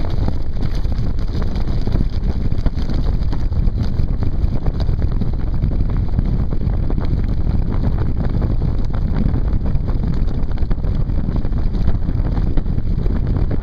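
Strong wind buffeting the microphone of a land yacht's onboard camera while the land yacht sails fast over the sand, a steady heavy rumble with faint scattered clicks and rattles.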